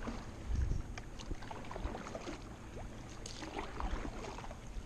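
Wind buffeting the microphone, with small water splashes and lapping against a canoe's hull.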